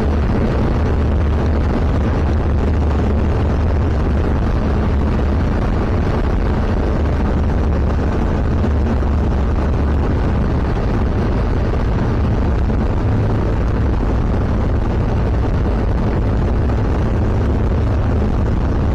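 Zenith CH701's engine and propeller droning steadily, heard inside the cockpit in flight, with a slight change in pitch about ten seconds in.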